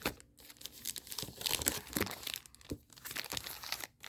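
Sticker sheets and their wrapping crinkling and rustling in irregular bursts as they are handled and pulled out.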